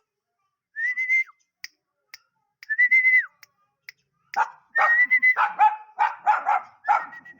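Two short, high, whistle-like calls, each held briefly and then dropping off, then a little past the middle a dog breaks into fast, repeated barking, several barks a second.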